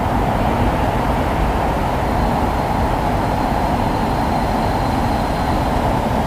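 Steady heavy rainfall: a dense, even wash of noise, deepest and loudest in the low range, with no separate drops or thunderclaps standing out.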